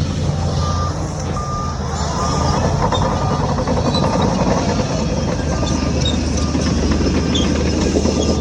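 Heavy diesel earthmoving machinery running, with a reversing alarm beeping at an even pace, a little under once a second.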